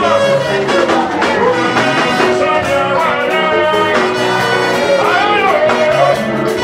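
Pentecostal praise music: a singer's voice bending and gliding over a band with a steady beat and bass line.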